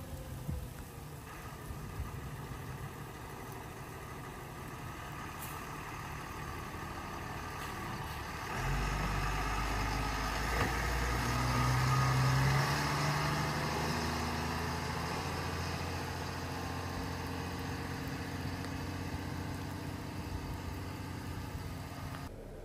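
High-clearance high-water rescue truck driving past on a wet road: a heavy engine hum that gets louder from about a third of the way in, rising in pitch as it pulls, with tyres hissing on the wet pavement, loudest about halfway through, then slowly fading as it drives away. Before that, a quieter vehicle rumble.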